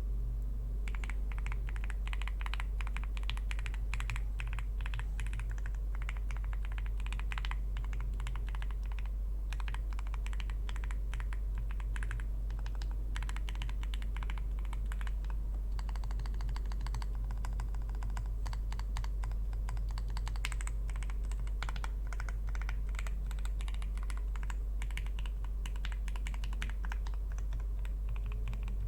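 Fast typing on an Owlab Spring ergonomic mechanical keyboard with factory-lubed Gateron Oil King linear switches, an aluminium plate and GMK keycaps: a dense, irregular run of key strokes that starts about a second in. A steady low hum runs underneath.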